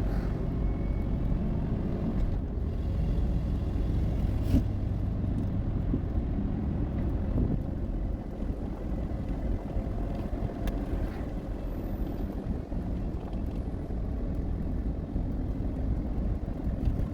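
A vehicle driving: steady, low road and engine rumble.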